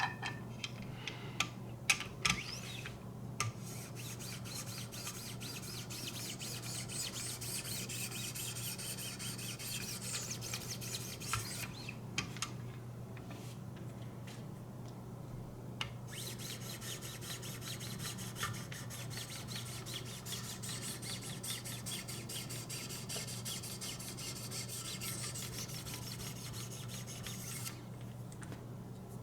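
1,500-grit diamond sharpening stones rubbed in quick repeated strokes along the Spyderco Impala's VG-10 blade edge on a guided sharpening system. The rasping runs in two long spells with a pause of a few seconds about midway, over a steady low hum.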